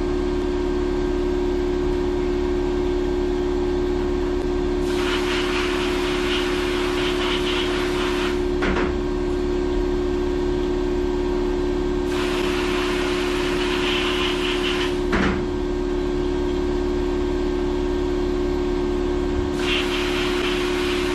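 Abrasive blast cabinet blasting rust off a tractor top link's threads with glass bead: a steady machine hum throughout, with three hissing bursts of a few seconds each as the blast gun is triggered, about five, twelve and nineteen seconds in. A short knock comes between the first and second bursts, and another between the second and third.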